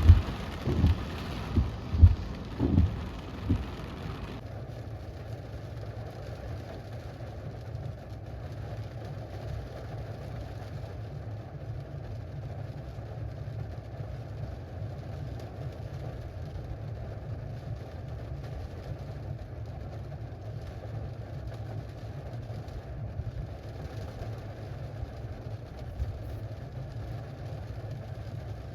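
Heavy rain with a run of loud, short low thumps for the first few seconds; then the rain noise drops off and a steady low hum of a car engine idling continues, with faint rain over it.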